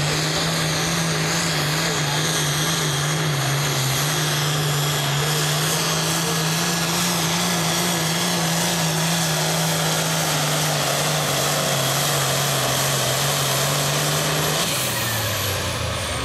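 Allis-Chalmers D21 pulling tractor's turbocharged diesel engine running flat out at steady high revs under load, dragging a weight-transfer sled. About fifteen seconds in it throttles back as the pull ends, with a high turbo whistle falling away.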